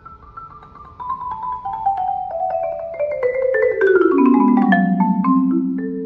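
Marimba with synthetic Acoustalon bars played with mallets: a fast run of single notes falling from high to low and growing louder, settling into rolled low notes in the second half.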